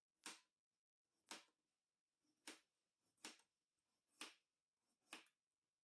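Kitchen knife slicing thin rounds from a peeled potato, each cut ending in a tap on the cutting board: six faint, sharp cuts about a second apart.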